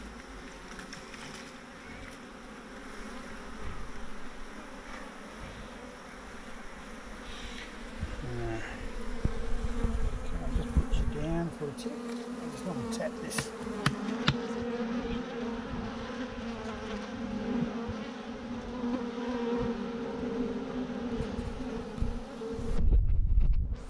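Honeybee swarm buzzing, a steady droning hum that grows louder about a third of the way in. A few sharp clicks in the middle and a loud low bump near the end.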